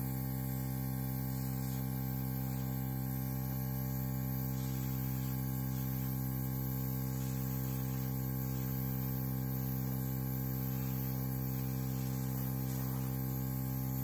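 Small air compressor running with a steady hum while air hisses from an airbrush nozzle held close to a canvas, blowing wet acrylic paint across it.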